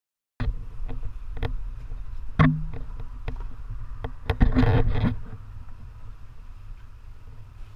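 Wind rumbling on a camera's microphone, with scattered knocks and bumps from the camera being handled. A louder rush of noise comes about four and a half seconds in.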